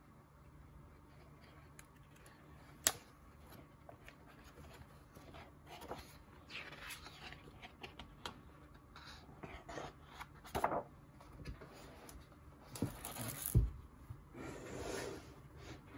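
Pages of an oversized hardcover comic book being turned by hand: paper rustling and sliding, with scattered light taps and clicks as the book is handled. There is a sharp click about three seconds in and a dull thump late on.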